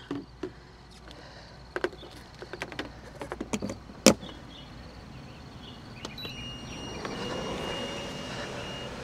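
Electric pressure cooker being plugged in and switched on: scattered plastic clicks and knocks, a sharper click about four seconds in, then short electronic beeps and a steady high tone from the control panel about six seconds in.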